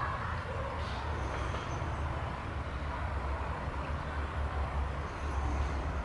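Steady low rumble of outdoor background noise, with a faint high whistle heard twice.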